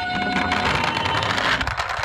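Die-cast toy ambulance minicars rattling as they roll down a slope, over a two-tone hi-lo ambulance siren alternating between a higher and a lower note.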